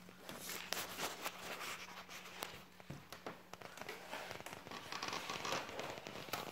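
Irregular scratching, clicking and crackling, denser about five seconds in: a green iguana's claws and tail scraping the floor as it moves.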